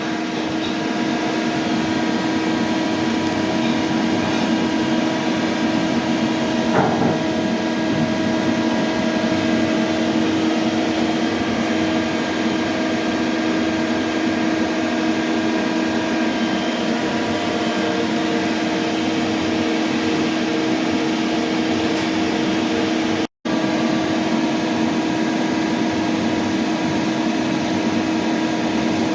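Hyundai HIT 8 S CNC lathe running: a steady mechanical hum with a constant low tone and higher overtones. It cuts out for an instant about three-quarters of the way through.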